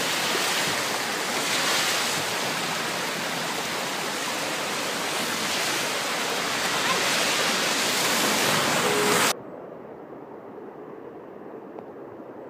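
Rain runoff rushing along a flooded street gutter against the curb in heavy rain, a loud steady wash of water. About nine seconds in it cuts off abruptly to a much quieter hiss.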